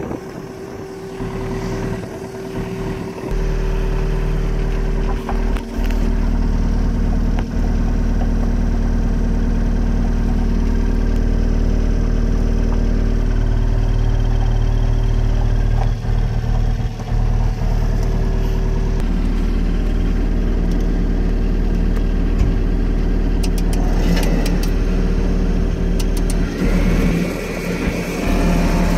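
The diesel engine of a Komatsu PC50MR-2 midi excavator running steadily, heard from inside its cab. About three seconds in it grows louder, with a deeper hum.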